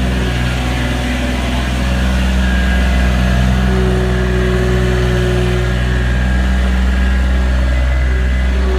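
A tractor engine running steadily at raised throttle while moving a large hay bale, growing slightly louder about two seconds in.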